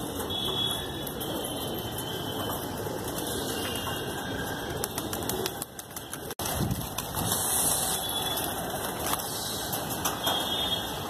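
Domestic pigeons' wings flapping and fluttering as the flock circles close overhead, with a steady rushing outdoor noise and scattered clicks throughout. The sound drops out for an instant about six seconds in.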